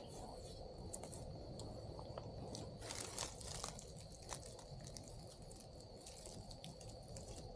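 Dry grass or leaves crackling and crunching close to the microphone as someone shifts on the ground, with scattered crackles that bunch together about three seconds in. A faint steady high tone runs underneath.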